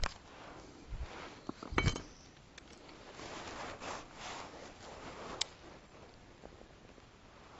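Close handling noise at the camera: a few hard knocks and clicks as a fishing rod and hand bump the kayak-mounted GoPro, the loudest just before two seconds in and a sharp click after about five seconds, with cloth rustling in between as a sleeve brushes over the camera.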